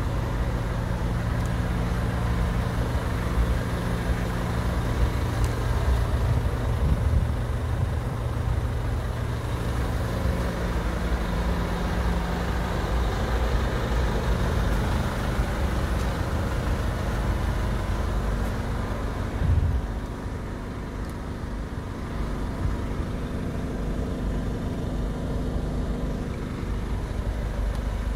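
Chevrolet Orlando's diesel engine idling steadily, started to recharge a battery run down after days parked. There is a brief thump about two-thirds of the way through, after which the engine sounds a little quieter.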